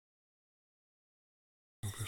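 Dead silence for most of it; near the end the audio cuts in suddenly with a man's low voice over insects chirping in an even rhythm.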